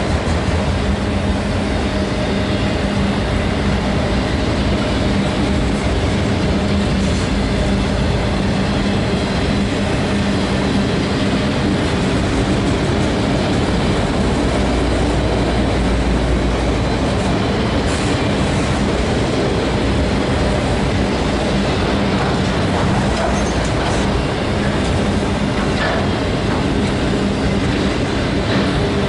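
Diesel-hauled train passing close by: a steady rumble of wheels on rail that holds at the same loudness throughout.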